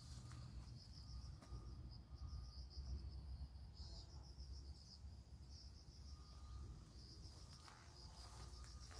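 Insects, crickets by the sound, chirping in a continuous high, rapidly pulsing trill with short gaps, faint, over a low rumble.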